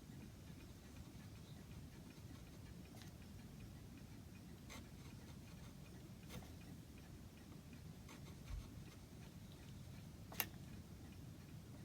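Quiet workshop with a few faint, irregularly spaced clicks and taps of a chisel working lime wood by hand, the sharpest click about ten seconds in and a soft thump shortly before it.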